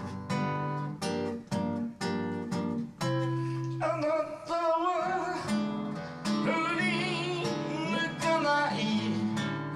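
Acoustic guitar strummed in steady chords; about four seconds in, a man's voice joins, singing a long, wavering melodic line over the guitar, and near the end the guitar carries on alone.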